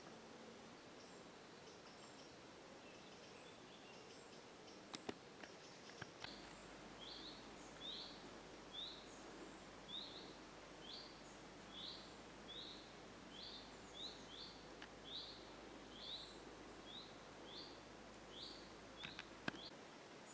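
Faint woodland quiet in which a small bird repeats a short, high call about every two-thirds of a second, from about six seconds in until near the end, with a few fainter calls before it.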